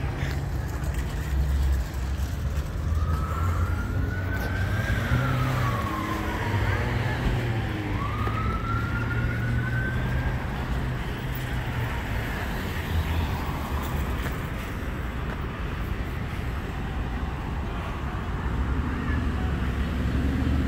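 Police siren wailing in slow rising and falling sweeps, from about three seconds in until about ten seconds in, over steady traffic noise.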